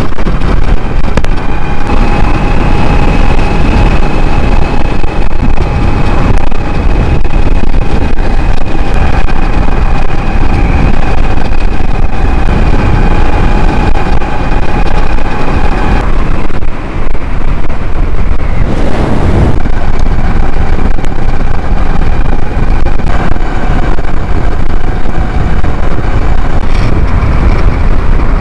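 Heavy wind rumble on the microphone of an e-bike at speed, with a steady high whine from its stock Tuttio hub motor, driven by a Far Driver controller at about double its rated continuous power. The whine cuts out about halfway through and comes back a few seconds later at a slightly lower pitch.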